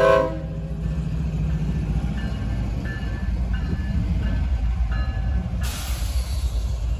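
Norfolk Southern diesel freight locomotive's air horn cutting off just after the start, then the locomotive's engine rumble and wheel-on-rail noise as it passes close by. Faint dings repeat for a few seconds, typical of a grade-crossing bell. A brief burst of hiss comes near the end.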